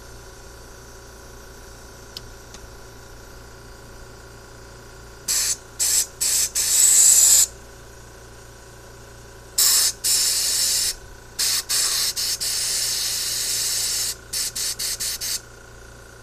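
Compressed-air blow gun hissing as air is blown through a four-barrel carburetor's jets and passages to check them for clogs. A few quick blasts about five seconds in, a longer blast, then a second long burst and a run of rapid short blasts near the end.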